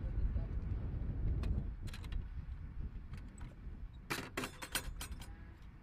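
Low rumble at first, then a quick run of sharp metallic clicks and rattles about four seconds in as the latch and lid of a metal ammunition can are worked open.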